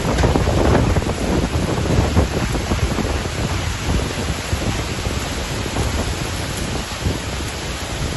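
Strong storm wind buffeting the microphone, a dense low rumbling roar mixed with the hiss of rain. The gusts are strongest in the first couple of seconds, then ease a little.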